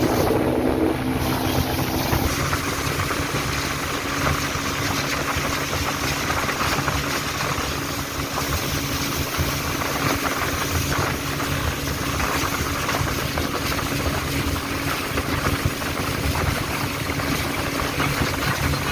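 Boat motor running steadily, a constant drone with a rushing noise over it.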